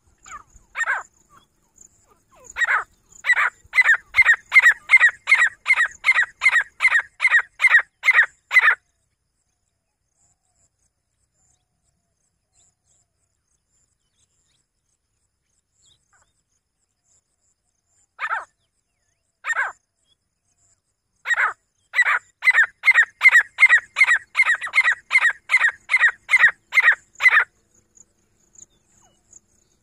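Grey francolin calling: a few single notes, then a fast run of loud, evenly spaced notes, about three a second, for some six seconds. After a long pause, two single notes lead into a second such run.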